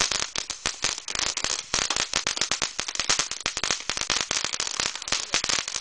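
Firecrackers going off in a fast, irregular run of sharp pops, many a second, without a break.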